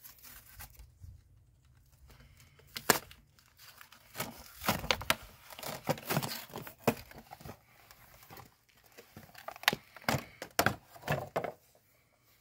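Cardboard box and clear plastic packaging being handled and pulled open: irregular rustling, crinkling and tearing with scattered sharp cracks, the sharpest about three seconds in.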